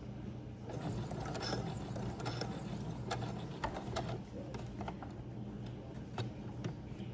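Domestic electric sewing machine stitching fabric binding tape: a steady motor hum with scattered clicks from the needle and feed.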